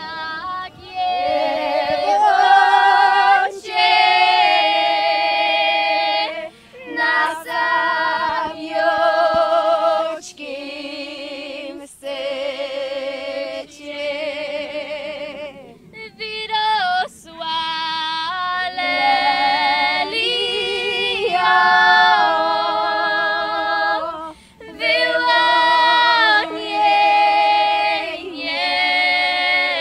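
A group of Polish highland (góral) women singing a folk song a cappella, several voices in harmony. They sing in phrases broken by short pauses for breath.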